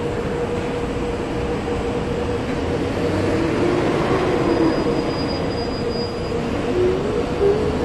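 Singapore MRT train running at a station platform: a steady rumble with a constant hum, and a whine that rises and falls around the middle.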